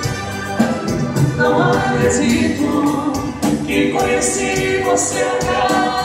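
Live dance band playing a song, with a singer over drums and keyboards and a steady beat.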